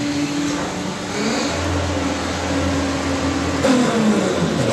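Carpathian SMFA 100 band sawmill travelling along its track under power, with a steady mechanical hum and running noise. Its pitch drops in the last second as the machine slows to a stop.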